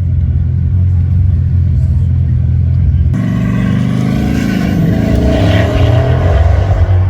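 Car running close by, heavy low rumble at first. About three seconds in the sound changes abruptly to gliding engine or motor pitch with a faint high whine that rises and falls, and voices under it.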